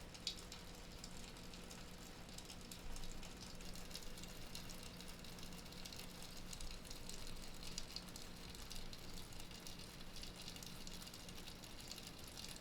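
Faint background ambience: a steady low hum under a light hiss, with scattered faint ticks.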